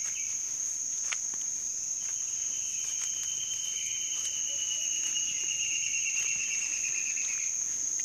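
Amazon rainforest insects calling: one steady, high-pitched buzz throughout, joined about two seconds in by a lower, continuous trill that slowly falls in pitch and stops near the end.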